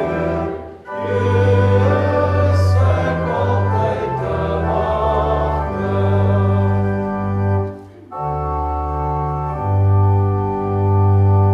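A congregation sings an Afrikaans metrical psalm with church organ accompaniment. About eight seconds in the singing stops, and the organ plays on alone in sustained chords.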